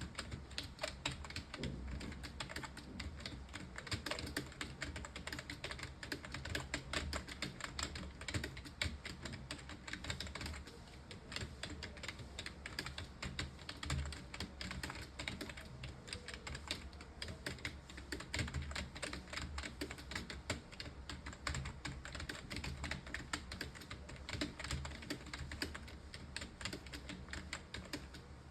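Fast, continuous typing on a computer keyboard, many keystrokes a second without a break, as in a timed typing test.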